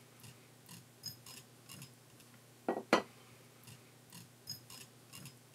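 Butter knife spreading butter along a cob of cooked corn: faint scraping and light clicks of the blade over the kernels, with a pair of sharper clicks close together about three seconds in.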